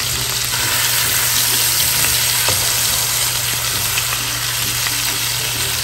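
T-bone steaks shallow-frying in oil over high heat in an open pan: a loud, steady, dense sizzle.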